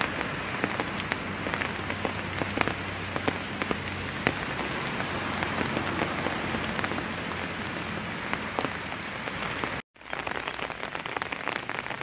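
Steady rain falling, with many individual drops ticking sharply close by. The sound drops out for a moment just before the end, then the rain carries on.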